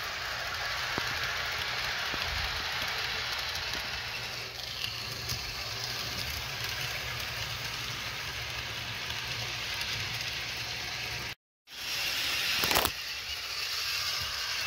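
Electric model train running along its track: a steady rolling noise of small wheels on rails. It breaks off for a moment about eleven seconds in, then carries on with one brief louder clatter.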